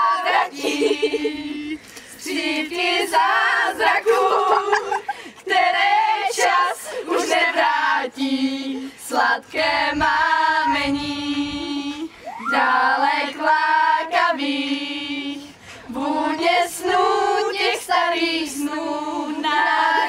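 A group of teenage girls singing a song together, holding notes in phrases of a few seconds with short breaks between the lines.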